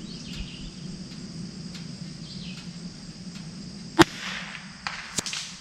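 .22LR rifle shot about four seconds in, a single sharp crack with a short tail, followed about a second later by a second, weaker sharp click. Steady insect chirring underneath.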